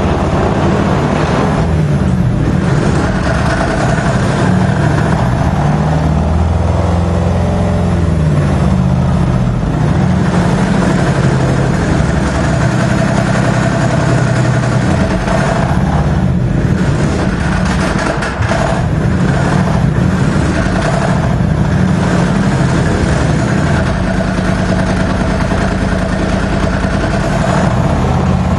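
Engine of an Argo-based replica Tetrarch tank running steadily as the tracked vehicle drives and turns slowly, its revs rising and falling about six to ten seconds in.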